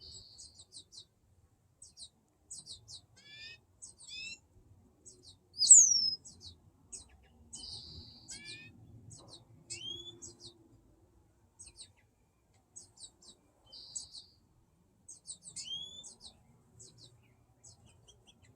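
Fledgling American goldfinch begging to be fed: quick runs of thin, high chirps repeated throughout, with a few gliding whistled notes, the loudest one about six seconds in.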